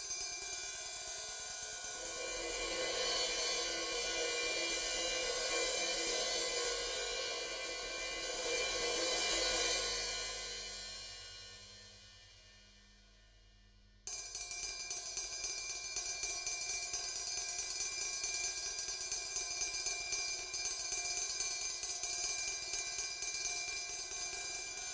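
Ride cymbal ringing, building into a dense shimmering wash that fades away over a few seconds. About fourteen seconds in, a new passage cuts in abruptly with rapid, steady strikes on the ride that keep it ringing continuously.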